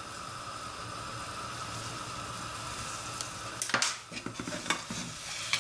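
Soup simmering in a steel pan on a gas stove, a steady hiss. About three and a half seconds in, a few sharp clinks and knocks of utensils.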